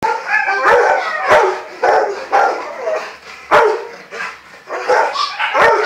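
Dog barking in a quick, uneven series of short barks and yips, about two a second.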